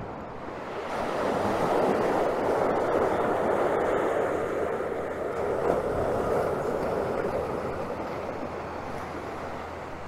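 Ocean surf: waves breaking and rushing up the sand in a steady wash that swells about a second in and slowly fades toward the end.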